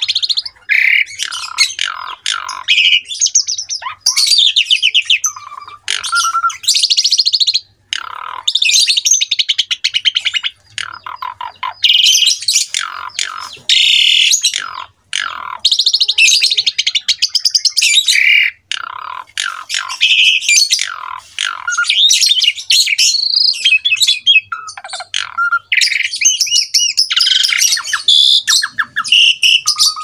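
Pied starling (jalak suren) in full song: a long run of loud, varied phrases of clear whistles mixed with harsh, rasping chatter, in bursts of a second or two broken by short pauses.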